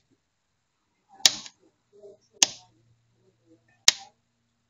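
Kitchen knife chopping through banana slices onto a plastic cutting board: three sharp clicks of the blade striking the board, a little over a second apart.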